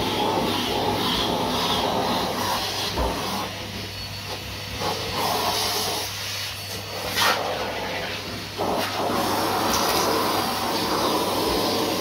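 Numatic Hetty cylinder vacuum cleaner running, with a steady motor hum. The suction rush dips and swells as the crevice tool is worked along the carpeted stair treads, and there is a brief sharp click about seven seconds in.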